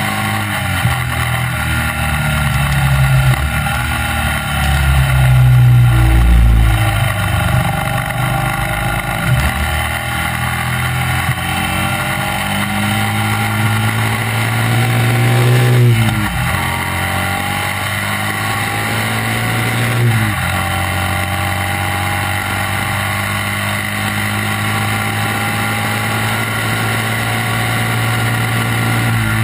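Racing sidecar outfit's engine running hard on a circuit, heard onboard from the front of the outfit, its pitch rising and falling through the corners. The note drops sharply twice, about 16 and 20 seconds in.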